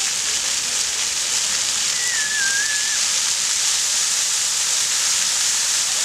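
Floor fountain's rows of water jets spraying up and falling back onto a wet stone plaza: a steady, even hiss of splashing water.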